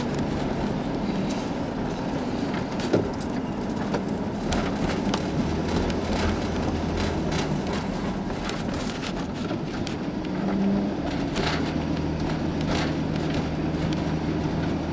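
Engine and tyre noise heard from inside a moving vehicle: a steady low hum with scattered light clicks and rattles, and one sharp knock about three seconds in.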